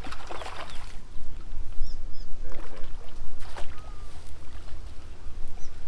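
A hooked Mekong giant catfish splashing at the water's surface while it is scooped up with a small landing net. There are two bursts of splashing, one near the start and a shorter one about three and a half seconds in, over a steady low rumble.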